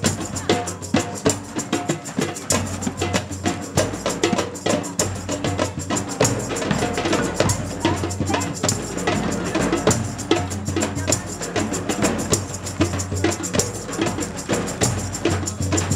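Drumming on a large double-headed drum: a fast, even rhythm of strokes.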